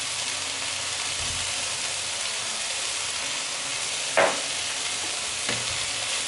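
Diced onion, garlic, celery and peppers sizzling steadily in hot olive oil in a frying pan, with a short knock a little past four seconds in. Near the end a wooden spatula begins stirring the vegetables.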